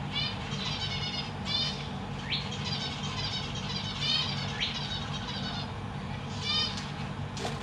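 Zebra finches calling: runs of short repeated notes, with a few quick rising notes in between, over a low steady hum.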